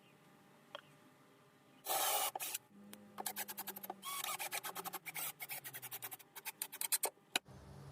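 Fast, uneven rubbing and scraping strokes on a small pine workpiece, after a short rasping burst about two seconds in.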